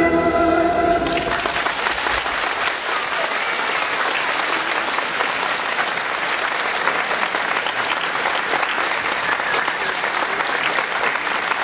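Music ends about a second in, and an audience applauds steadily.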